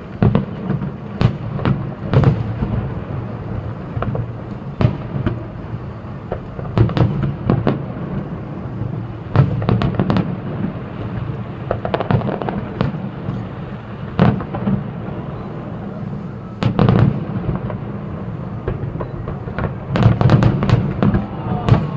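Fireworks display: aerial shells bursting in a series of sharp bangs at irregular intervals, about one every second or two, over a steady low rumble, with a rapid cluster of bursts near the end.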